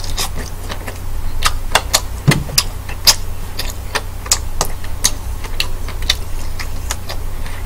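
Close-miked chewing of king black tiger prawn meat: irregular wet mouth clicks and lip smacks, about two or three a second, over a steady low hum.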